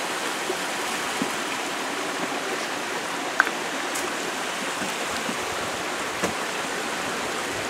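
Mountain creek water flowing steadily over rocks, with a few faint knocks as a man steps along the stony creek bed.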